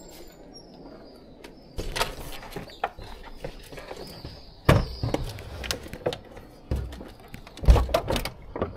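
A door being opened and a heavily loaded touring bicycle wheeled out through the doorway: a run of irregular knocks and thumps as the bike and its bags bump the door and frame, the loudest near the end.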